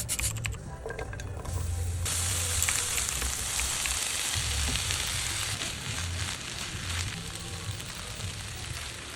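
Food sizzling as it fries in a hot pan, the hiss starting about two seconds in, with small crackles and pops.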